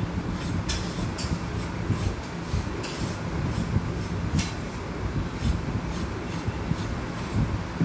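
Knife peeling vegetables by hand, a string of short, irregular scraping strokes over a steady low hum.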